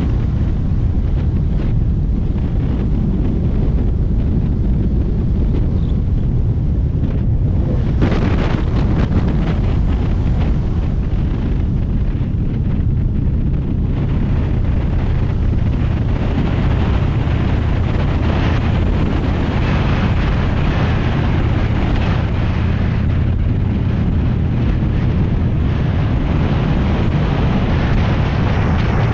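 Motorcycle engine running at a steady cruise, half buried under wind rushing over the microphone. The wind noise grows louder about eight seconds in and again through the second half.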